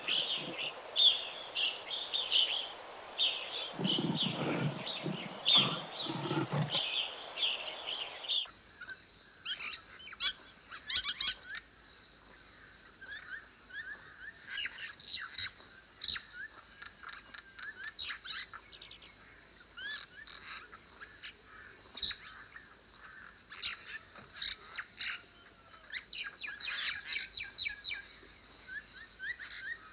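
Birds chirping and chattering. A dense high chatter with a few low thumps gives way abruptly, about eight seconds in, to a sparser mix of separate whistles and chirps.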